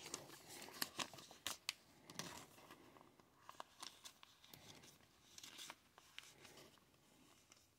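Faint rustling and scraping, with small ticks and crinkles, of a cardstock trading card being pushed into a clear plastic sleeve; the card catches and does not slide in easily.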